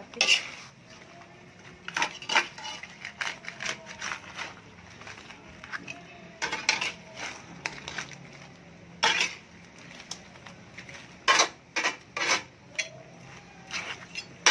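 Metal pot and utensil clinking and clattering as cooked shrimp and corn on the cob are tossed and stirred in sauce. The sharp clinks come at irregular moments, some in quick runs.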